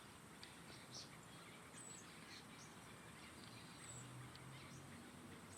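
Faint birdsong: many short, high chirps from small birds, scattered throughout over a steady background hiss.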